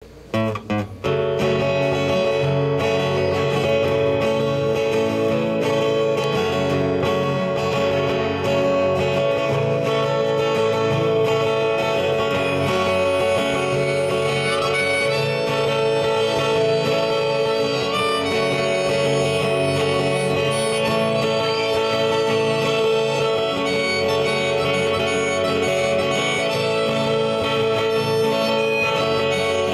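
Diatonic harmonica playing a sustained melody over two acoustic guitars strumming, in a live acoustic trio. A few separate guitar strums open it in the first second, then the music runs steadily.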